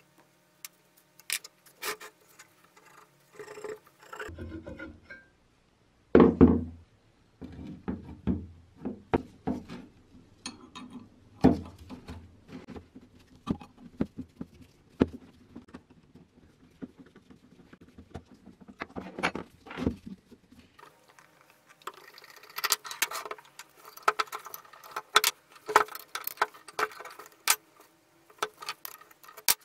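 Rusty steel parts of a manual rack-and-pinion arbor press being unbolted and handled: scattered metallic clinks and knocks, with a heavier thunk about six seconds in. Busier clattering of metal parts comes near the end.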